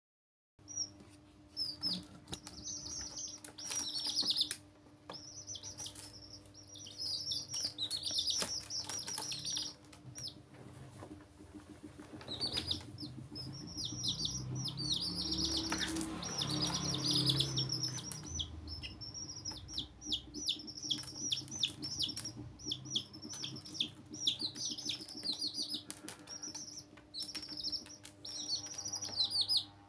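Baby chicks peeping almost without pause: rapid, high calls that slide down in pitch, several birds at once.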